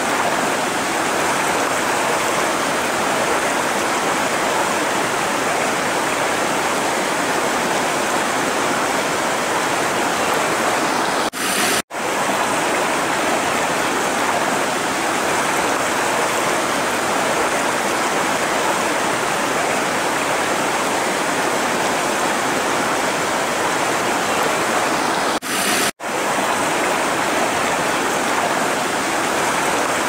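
River water rushing steadily over a shallow rocky rapid. The sound cuts out for a moment twice.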